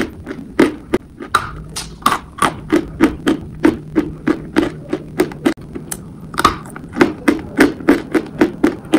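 Close-up chewing of a mouthful of chalk: dry, crisp crunches at about three a second, with a short pause a little past the middle.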